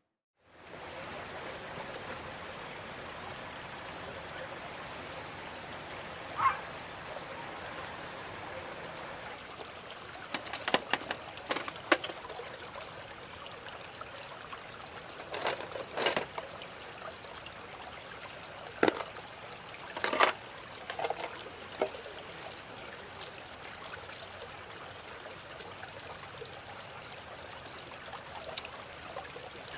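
A steady, water-like trickling hiss, broken by a few sharp clicks and knocks.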